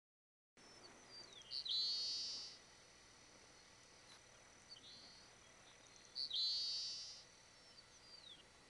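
Cape Sable seaside sparrow singing: two songs about four and a half seconds apart, each a few short opening notes followed by a buzzy trill, over a faint steady background hiss.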